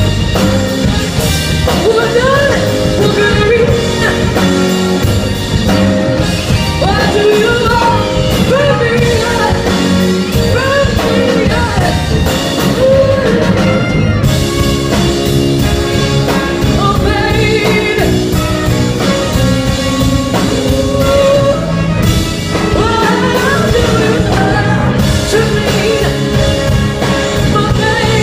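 Live rock band playing loudly: a steady drum beat and bass under a lead melody line that bends in pitch.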